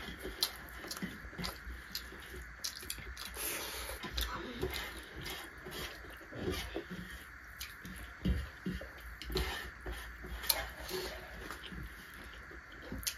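Eating by hand from metal plates: irregular wet mouth smacks and chewing with small clicks of fingers and rice against the plates, over a low steady hum.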